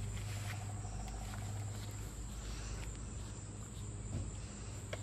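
A steady, high-pitched insect chorus over a low, steady hum, with a few faint clicks.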